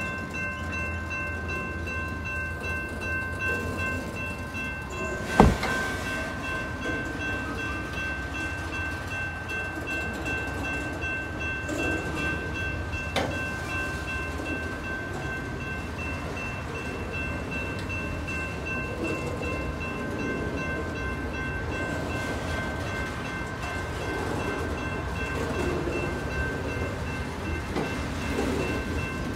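Freight train of loaded flatcars rolling steadily through a grade crossing: a continuous rumble and rattle of steel wheels on rail, with the crossing's warning bell ringing steadily. A sharp bang from the cars about five seconds in, and a smaller one a few seconds later.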